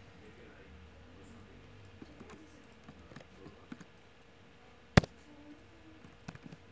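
Computer keyboard keystrokes: scattered light clicks, with one much louder sharp click about five seconds in.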